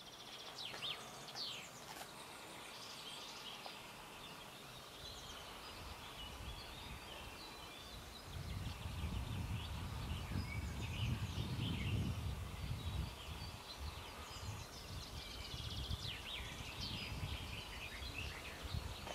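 Several songbirds chirping and trilling, with a low rumbling noise coming in about eight seconds in.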